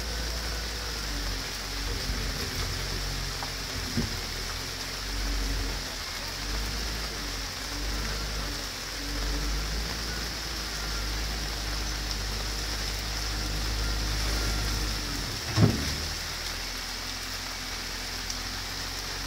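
Heavy rain pouring steadily onto pavement and puddles, with the diesel engine of a compact wheel loader running underneath. A single loud thump comes about three-quarters of the way through.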